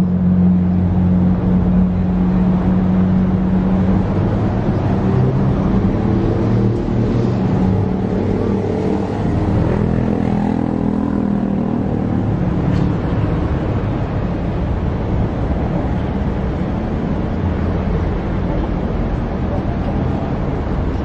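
Mercedes-Benz G550's V8 engine running at low revs as the SUV crawls slowly up a steep ramp, its pitch wavering in the middle as it works over the incline.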